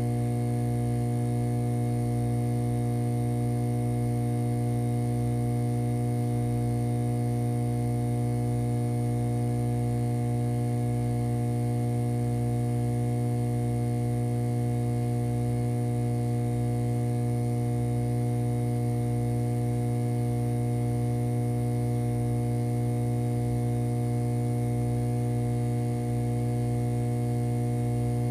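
Steady electronic hum: a strong low drone with several higher held tones stacked above it and a faint high whine, unchanging in pitch and level.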